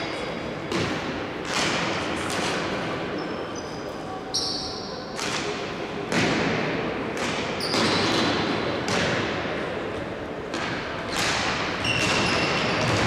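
Indoor hockey play in a sports hall: sticks and ball give sharp knocks, about one or two a second at uneven spacing, each echoing in the hall. Short high squeaks and voices are mixed in.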